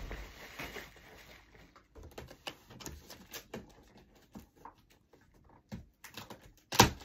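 Bubble wrap and plastic packaging crinkling and crackling in scattered small clicks as a package is unwrapped, with one sharp, louder knock near the end.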